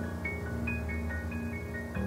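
Background music: a melody of short mallet-like notes over sustained chords and a pulsing bass.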